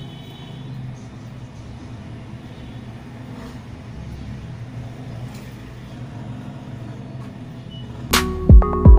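Steady low background hum. About eight seconds in, loud electronic music cuts in suddenly, with deep bass drops that fall in pitch.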